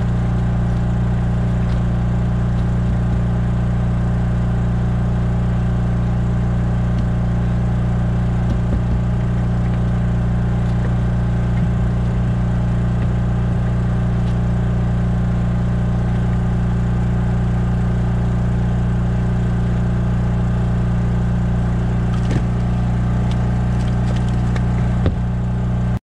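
An engine running at one steady speed, a constant low drone, with a few faint clicks and knocks over it.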